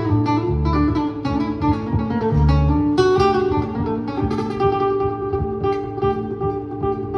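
Acoustic guitar playing a fast picked line over plucked upright double bass, live on stage. The deep bass notes are strongest in the first three seconds, then the guitar carries on with lighter bass under it.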